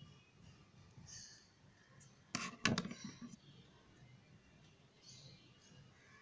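Faint handling noise of hands working a plastic hair clip through a doll's synthetic hair, with a brief cluster of sharp clicks about two and a half seconds in.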